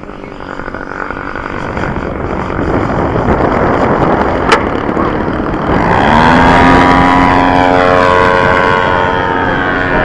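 Wind buffeting the microphone, then a model aeroplane's engine passing low, coming in about six seconds in and sliding slowly down in pitch as it goes by. A single sharp click near the middle.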